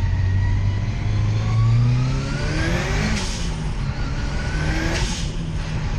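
Ford Escort RS Cosworth's turbocharged four-cylinder engine, heard inside the cabin, accelerating hard twice with the pitch climbing each time. Each pull breaks off with a short rush of noise as the driver changes gear, about three seconds in and again near the end.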